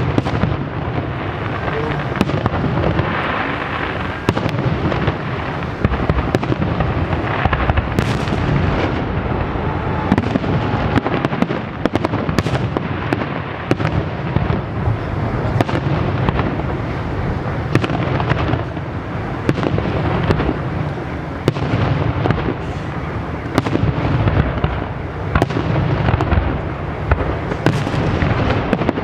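Fireworks display: a dense, continuous barrage of shell bursts going off, a steady run of sharp bangs and booms with crackle between them.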